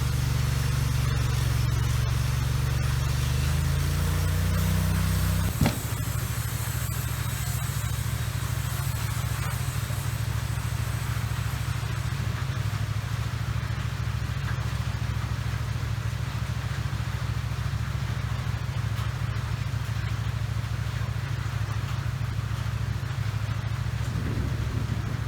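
A large engine running steadily, its pitch creeping up over the first few seconds. A sharp knock comes about five and a half seconds in, after which it runs slightly lower and evenly.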